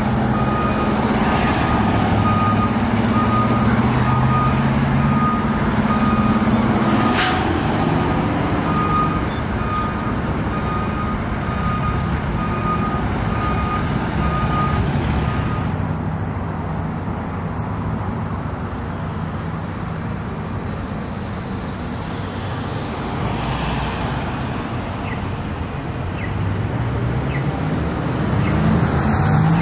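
Spartan fire engine reversing: its backup alarm beeps steadily over the diesel engine running, with a short hiss about seven seconds in. The beeping stops about halfway through, leaving passing-traffic noise.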